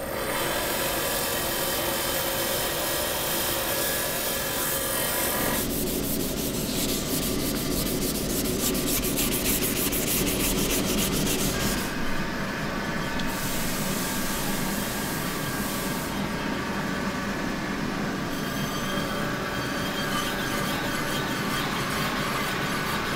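Malachite being ground and polished on a bench machine's spinning polishing wheel: a steady rubbing and grinding over the machine's running motor. The sound changes abruptly a few times, about 5, 12 and 16 seconds in.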